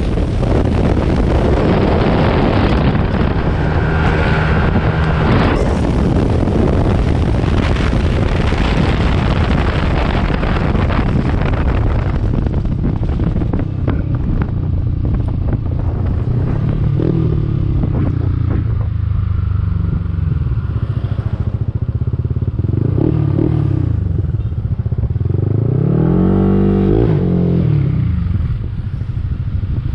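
Yamaha scooter's 210cc big-bore single-cylinder engine and CVT running at high speed, under heavy wind rush. From about halfway the rider eases off, and the engine note rises and falls several times as the throttle is opened and closed, settling lower as the scooter slows near the end.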